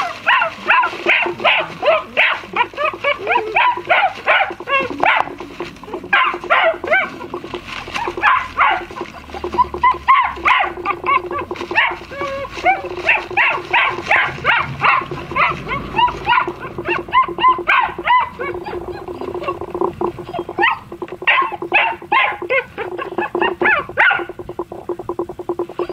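German Shepherd puppies yipping, barking and whimpering together, several short high calls a second, with a brief lull near the end.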